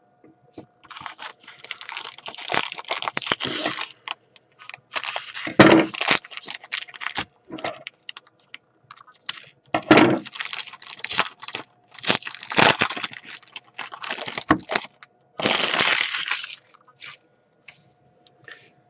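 Trading card packs and cards being handled: repeated bursts of crinkling, cracking and clicking, as a foil pack wrapper is torn and cards are shuffled. It stops about two seconds before the end.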